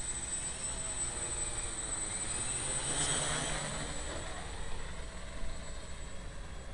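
MultiWii quadcopter's electric motors and propellers buzzing in flight. The sound swells about three seconds in and then fades as the copter flies off into the distance.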